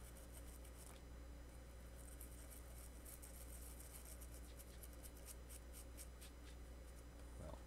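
Near silence over a steady low hum, with faint, quick scratchy rubbing strokes from about two seconds in as the small circuit board in the drone motor's end cap is worked on.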